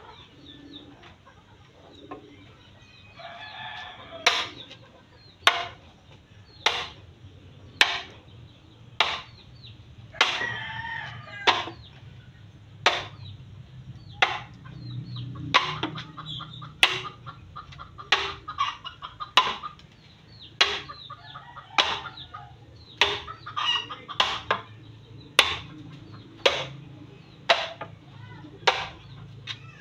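A hand tool striking a bamboo pole over and over, a little more than one sharp blow a second, with chickens clucking and a rooster crowing behind it.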